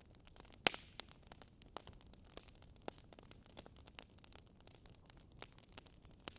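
Fire in a fireplace crackling: irregular small snaps and pops over a low hiss, with one louder pop under a second in.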